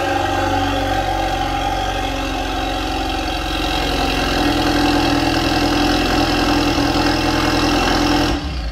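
Hyundai Veloster N's turbocharged 2.0-litre four-cylinder engine running at idle as the car backs slowly onto the driveway and stops. The sound cuts off abruptly near the end.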